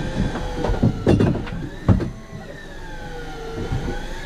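A motor whining steadily, its pitch slowly wavering up and down, with a few sharp knocks in the first two seconds.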